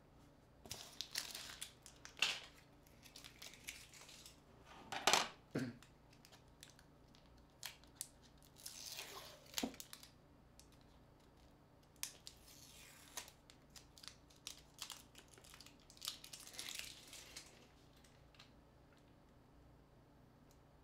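Hands and small tools handling a smartphone during disassembly: intermittent scratchy rustling and small clicks, loudest about five seconds in, thinning to a few light clicks near the end.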